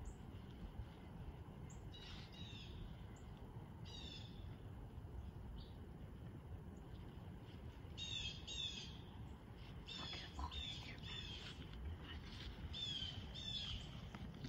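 Bird calls: short, high, downward-sliding chirps, a few on their own at first, then in quick pairs and runs from about eight seconds in, over a low steady rumble.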